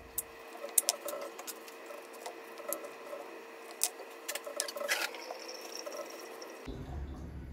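Kitchen knife cutting melon on a plastic cutting board, with the pieces set into a ceramic bowl: a run of light clicks, taps and scrapes, the sharpest about a second in and near four and five seconds in, over a faint steady hum.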